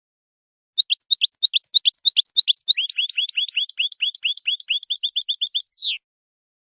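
European goldfinch singing: a run of quick twittering notes that speeds up into a fast trill and ends with one falling note.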